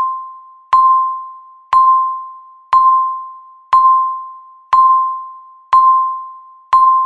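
Countdown timer's per-second chime: a single bell-like ding at one steady pitch, struck once every second with a sharp start and a ringing fade, seven times.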